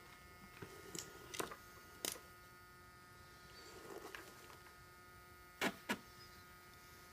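Faint handling noise: a few scattered light clicks and knocks, with a close pair of taps near the end, over a low steady hum.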